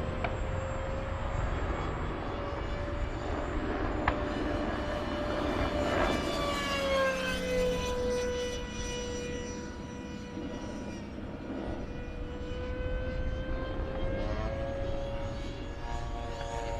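Electric ducted fan whine of a radio-controlled SU-35 jet in flight. The steady high whine drops in pitch about seven seconds in and climbs again near the end.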